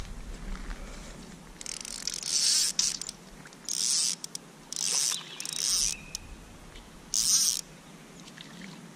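Fly reel's click-and-pawl drag buzzing in five short bursts, each under a second, while a big brown trout is being played on the line.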